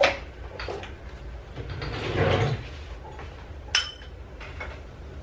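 Kitchen handling noises while measuring yeast: a few light clicks and a brief rustle, then a single sharp clink with a short ring about three-quarters of the way through, as a spoon strikes a bowl.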